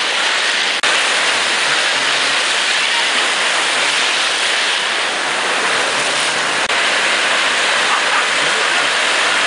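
Ocean surf breaking and washing through the shallows: a loud, steady rush of whitewater that drops out for an instant twice.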